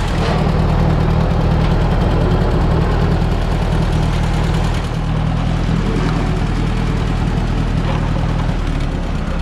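Ford 860 tractor's four-cylinder engine running steadily at a low, even speed, with a slight dip in level about five seconds in and again near the end.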